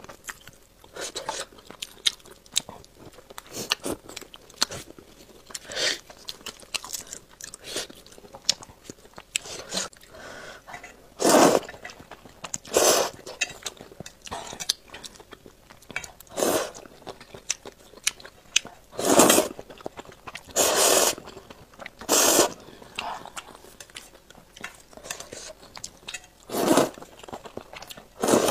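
Close-miked eating: wet chewing and crunching. About halfway through come several louder, drawn-out slurps of noodles in broth, about seven in all.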